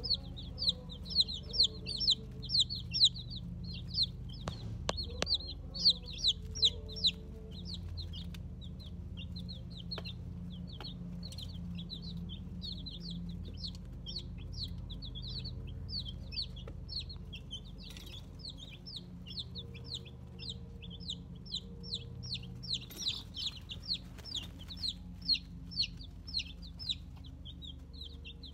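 Four-day-old Faverolle chicks peeping nonstop: short, high, downward-sliding cheeps several a second, loudest in the first seven seconds, with a few sharp taps.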